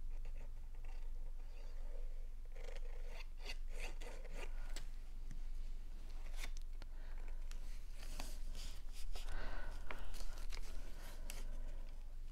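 Folded cardstock greeting card being handled and pressed: crackly rustling and rubbing of paper with scattered light taps and clicks, loudest as the card is opened out and pressed flat, about two-thirds of the way through.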